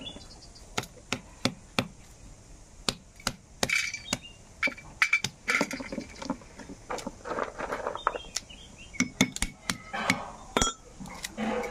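Fire-roasted cashew seeds being cracked open by tapping them with an iron blowpipe rod on a stone, giving irregular sharp knocks and light clinks of shell pieces.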